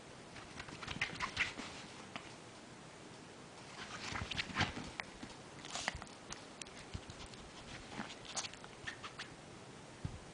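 Small Yorkshire terrier moving about in its fleece bed, making clusters of short scuffling and rustling noises. The loudest cluster comes about four to five seconds in.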